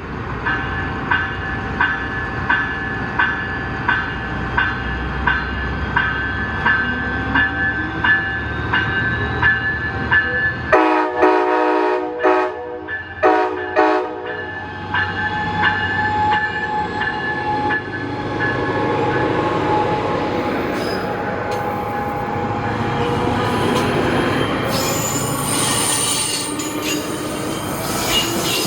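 Coaster commuter train's diesel locomotive departing. A bell rings about twice a second over the low engine rumble. About eleven seconds in comes a string of loud multi-tone horn blasts lasting some three seconds. Then the train rolls past with steady wheel-and-rail noise and thin high wheel squeal near the end.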